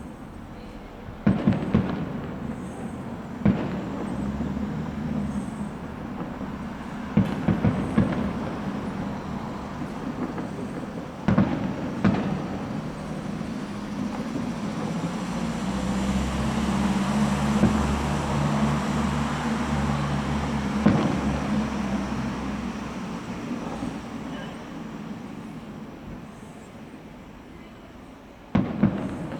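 Fireworks display: aerial shells bursting with sharp booms, several in quick clusters, over a continuous rumbling crackle from the show that swells and fades in the middle.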